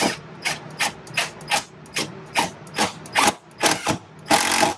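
A long sheet metal screw being driven through overlapping fender sheet metal, in about a dozen short mechanical bursts two or three a second, then a longer burst near the end.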